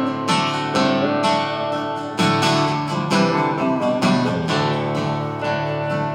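Live folk song instrumental passage: acoustic guitar strummed in a steady rhythm, with a melody line sliding between notes over it.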